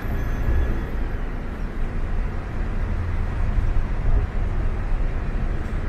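Ashok Leyland coach driving on a highway, heard from inside the front of the cabin: a steady engine and road rumble.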